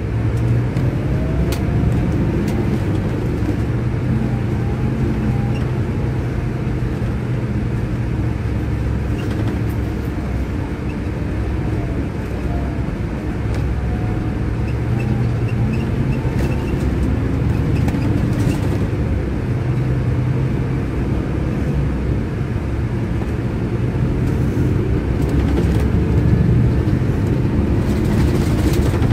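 Scania K400IB double-deck coach's rear-mounted six-cylinder diesel engine heard from inside the passenger cabin, running steadily under way with a low hum and road noise.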